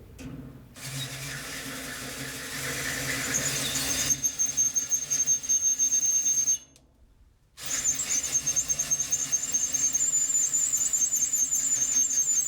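Electric drill boring through metal, the bit cutting with a steady high squeal. It stops for about a second halfway through, then drills again.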